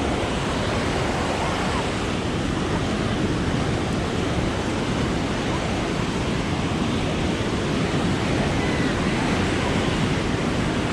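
Ocean surf breaking and washing up a sandy beach: a steady, even rush of noise with no pauses.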